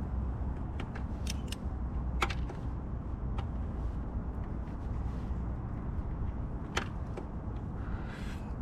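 A few short, sharp metallic clicks and taps from hand tools being worked on the scooter, with a steady low rumble of background noise underneath.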